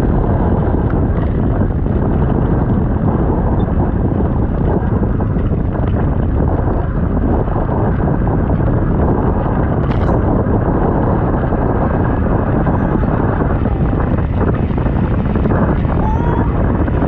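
Steady, loud wind rushing over the camera microphone of a sand yacht moving fast across the beach, mixed with the rolling of its wheels on the sand.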